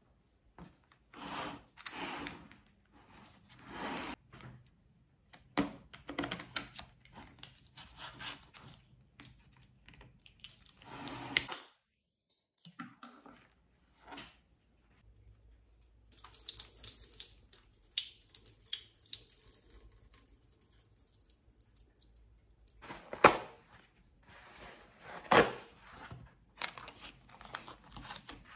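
Close-up kitchen handling sounds: the plastic film and tray of a tofu pack crinkling and tearing, paper rustling, and light knocks on a plastic cutting board, with two sharper sounds a little after two-thirds of the way through.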